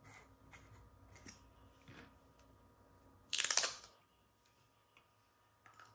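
A few light clicks of a screw-top jar of acrylic nail powder being handled and opened, then a loud, crinkly half-second rip about three and a half seconds in as the printed seal is peeled off the jar's mouth.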